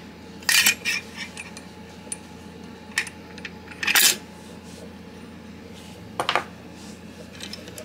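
Metal knife parts clinking against each other and the tray as a Spyderco Paramilitary 2 is taken apart, its handle scales and liners lifted off and set down. Several sharp separate clinks, the loudest about four seconds in.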